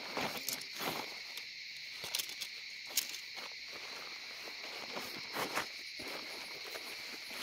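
Steady high insect chirring in the forest, with scattered crunches and rustles from handling or stepping on leaf litter, the sharpest click about three seconds in.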